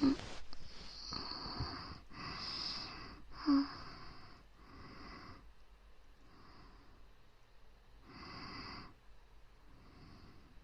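Close-miked ASMR breathing: about seven slow, airy breaths blown into the microphone one after another, fainter in the second half except for one fuller breath near the end. Two very short low voiced sounds, at the start and about a third of the way in, are the loudest moments.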